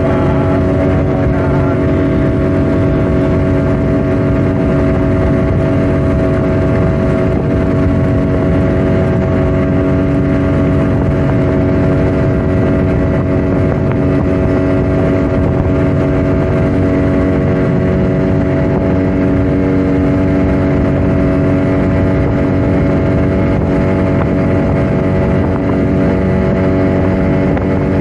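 Speedboat engine running steadily at high speed, holding one even pitch with no revving or slowing.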